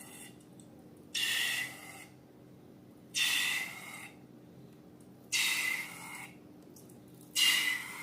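Air rushing out of a balloon's neck in four short bursts, each a hiss with a faint squealing tone, about two seconds apart.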